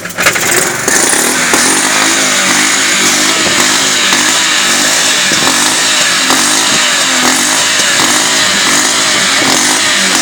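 BMW M52 2.8-litre straight-six running loud at the exhaust, its speed rising and falling in quick repeated waves as the throttle is blipped to check the exhaust soot and smoke.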